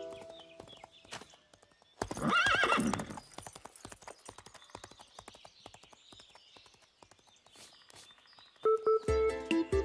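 A pony whinnies once, loudly, about two seconds in. Then its hooves clip-clop on the road, getting fainter as it goes away. Music comes in near the end.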